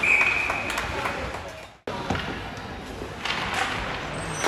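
Ice hockey referee's whistle blown once, a single steady shrill note just under a second long, stopping play; then arena noise with occasional knocks of sticks and skates.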